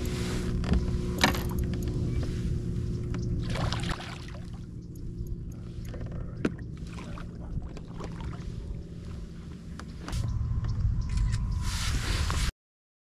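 A small bass splashing at the surface as it is netted beside a kayak, with knocks and creaks of the hull and net handling. The sound cuts off abruptly near the end.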